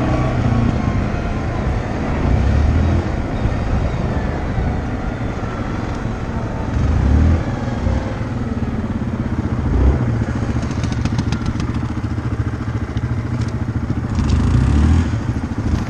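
ATV engine running under way, its low rumble swelling several times as the throttle opens and eases off. A spell of quick sharp rattling clicks comes about eleven seconds in.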